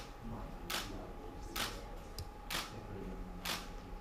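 Camera shutter clicking four times, about once a second, as photos are taken.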